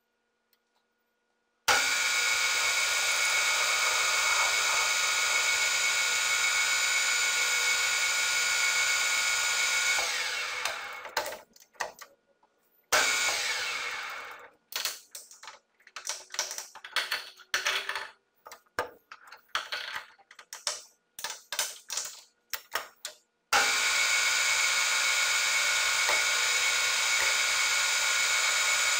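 Nardini Mascote metal lathe's headstock running, with a steady whine of several fixed pitches. It starts suddenly about two seconds in and winds down after about ten seconds. It then comes in short stop-start bursts before running steadily again for the last five seconds.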